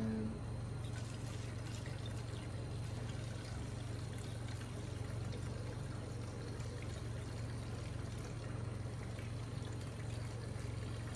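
Engine coolant being poured from a plastic jug through a homemade funnel into the car's coolant reservoir, a steady continuous pour, over a constant low hum.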